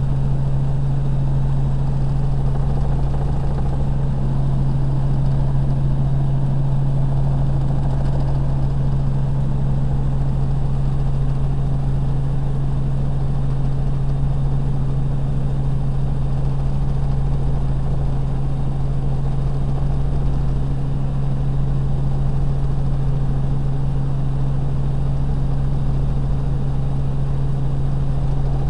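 Helicopter in flight, heard from inside the cabin: a steady, unchanging drone with a strong low hum under a rush of noise.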